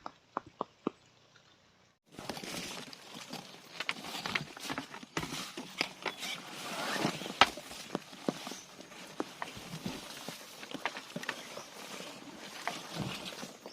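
Raindrops pattering and dripping on an open umbrella, mixed with footsteps on a wet forest trail. There are a few sharp clicks first, then a dense patter with many separate taps that starts about two seconds in.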